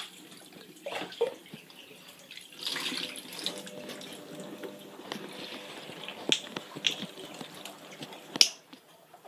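Water splashing and pouring in a stainless steel kitchen sink as a wet puppy is washed by hand, with a few sharp knocks against the sink. The loudest knock comes near the end.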